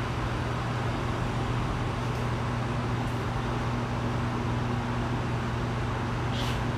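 Steady low hum under an even rushing background noise, with no speech.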